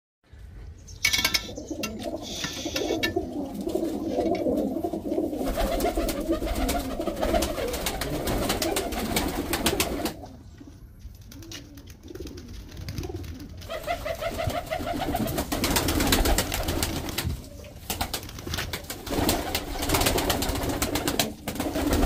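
A flock of domestic pigeons cooing, many at once. The cooing drops away for a few seconds about halfway through, then picks up again.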